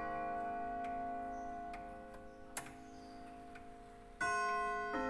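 Junghans Westminster de Luxe grandfather clock chiming: struck chime notes ring on and fade away, with the movement ticking, and a new chime note is struck about four seconds in.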